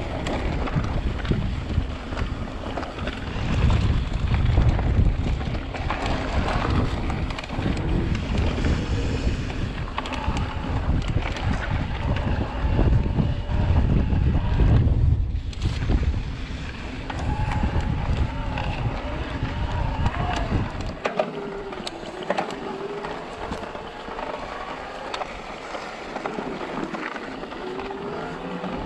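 Electric mountain bike ridden hard over rough trail: wind buffeting the chest-mounted camera's microphone and bumps from the trail, under the whine of the bike's Shimano Steps E8000 mid-drive motor under pedal assist. About two-thirds of the way through, the wind rumble drops away and the motor's wavering whine comes through more clearly.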